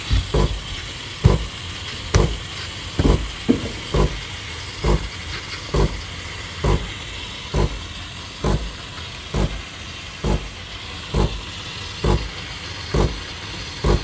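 Breville Barista Touch steam wand automatically frothing milk in a stainless steel jug: a steady hiss with a low rhythmic thump from the machine a little more than once a second, as the milk heats toward 65 °C.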